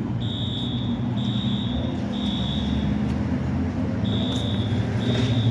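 Fire alarm sounding in the temporal-three pattern: three high beeps, a pause of about a second, then three more, over a steady low hum.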